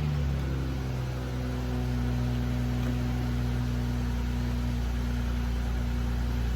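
1968 Corvette V8 running at a steady idle just after starting.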